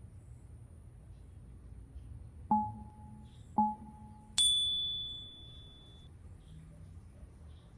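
A chime: two short, identical low ding tones about a second apart, then one higher bell tone that rings out and fades.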